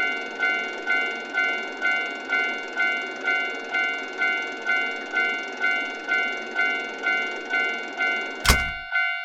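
Japanese railway crossing alarm ringing its 'kan-kan' bell, about two strikes a second, over a faint steady hiss. A sharp knock near the end cuts off the hiss while the bell keeps ringing.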